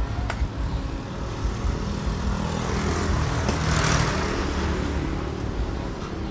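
A motorbike rides past close by, its engine swelling to a peak about four seconds in and then fading, over the steady low rumble of street traffic.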